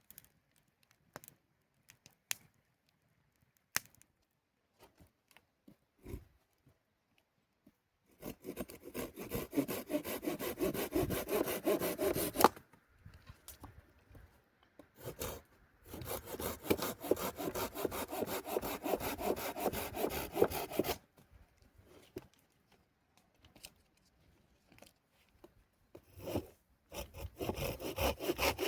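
Wood being cut with a hand saw in three spells of quick back-and-forth strokes, with pauses of a few seconds between them; only a few faint clicks in the first several seconds.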